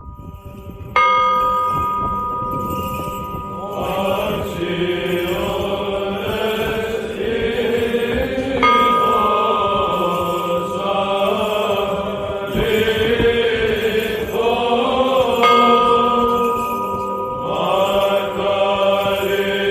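A church bell struck three times, about seven seconds apart, each stroke ringing on with many steady overtones, over chanting voices.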